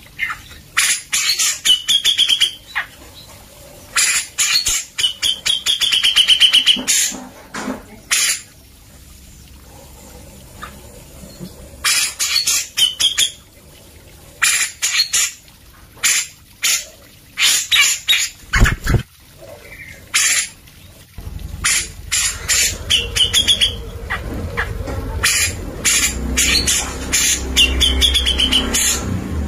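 Grey-cheeked bulbul (cucak jenggot) singing in repeated bursts of rapid, sharp notes, several bursts ending in a short warbled phrase, with pauses between them. There is a single low thud about two-thirds of the way through, and a low hum underneath in the last third.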